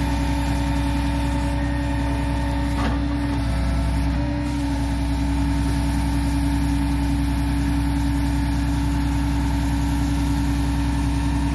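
Heavy truck engine of a truck-mounted tie crane running steadily at idle, with a steady hum over the engine note, as its grapple lifts a bundle of railroad ties.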